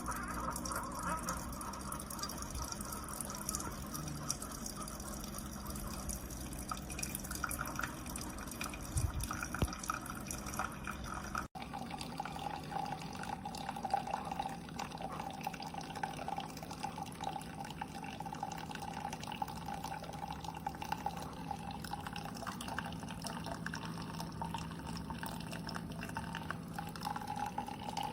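Single-serve pod coffee maker brewing: coffee streaming and dripping into a cup, with a steady hum from the machine. The sound breaks off for an instant about a third of the way in.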